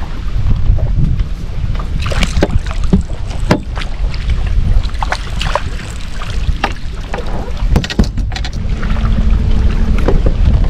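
Wind rumbling on the microphone, with a scattering of sharp knocks and splashes from reeling in and landing a hooked bass, thickest about eight seconds in.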